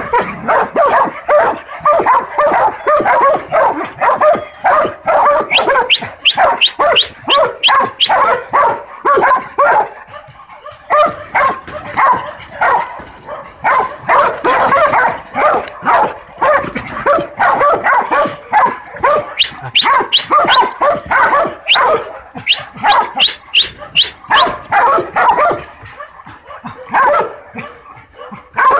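Two young hog dogs barking rapidly and without let-up as they bay a hog cornered in the pen. The barks overlap, with a short lull about ten seconds in.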